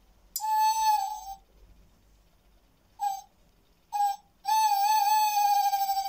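Bird-song wall clock sounding its twelve o'clock call, a tawny owl hoot: one long hoot, a pause, two short hoots, then a long wavering hoot.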